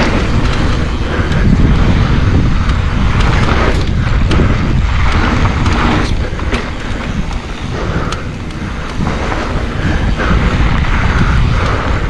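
Wind buffeting the microphone over the rumble of mountain-bike tyres on a dirt singletrack descent, with a few sharp rattles and clicks from the bike.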